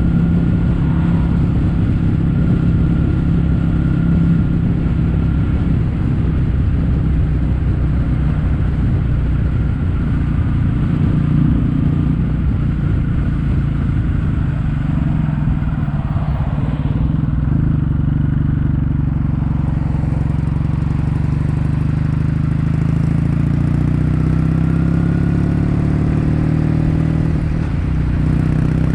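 Kawasaki W800's air-cooled parallel-twin engine running through Yamato stainless-steel Cabton-style silencers while riding on the road. Its exhaust note changes pitch with the throttle about halfway through, then steadies.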